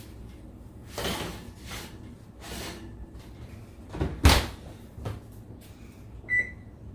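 A few light knocks and clatters, then the oven door shut with a loud thud about four seconds in. Near the end comes a single short electronic beep from the oven's timer keypad being pressed.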